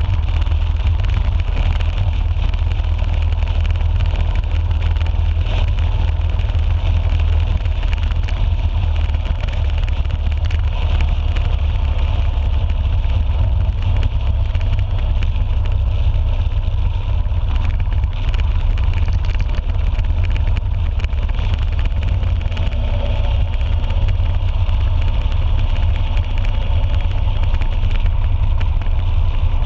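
Motorcycle cruising steadily at highway speed: a continuous low engine rumble mixed with wind rush on the handlebar-mounted camera's microphone.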